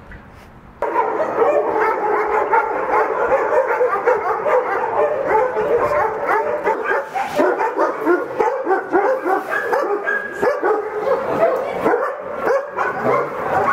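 Many dogs barking together in shelter kennels, a dense run of overlapping barks that starts abruptly about a second in and keeps going without a break.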